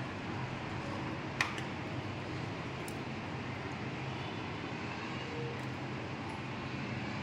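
Steady room background noise with a low hum, and one sharp click about a second and a half in.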